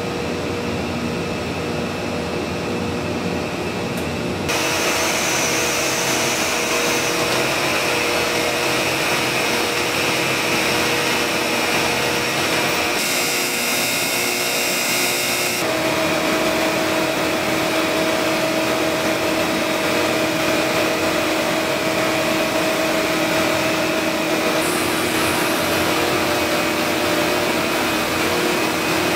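Steady low machine hum at first, then from about four seconds in the louder, steady hiss and whine of CNC tool-grinding machines grinding drill bits under coolant spray, with a few steady tones. The sound shifts abruptly a few times as shots change between grinding operations.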